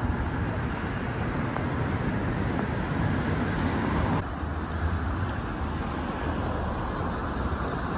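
Steady city street traffic noise, with cars driving past close by. About four seconds in it cuts to a slightly different, similar traffic ambience.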